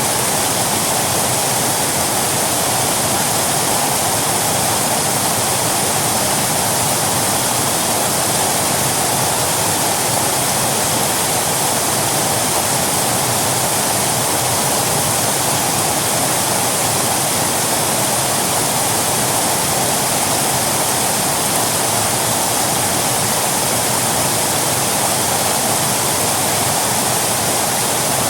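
Waterfall: water falling and splashing in a steady, dense rush with no breaks or changes.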